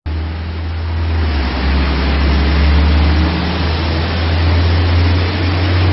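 Torrential rain pouring onto a flooded street: a steady, dense wash of rain noise over a deep, constant rumble.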